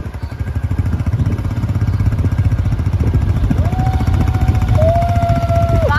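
Motorcycle engine running steadily while riding, a dense low pulsing that grows slightly louder after the first second. Over it, in the second half, a long steady tone is held for about two seconds, stepping slightly lower in pitch halfway through, then cuts off.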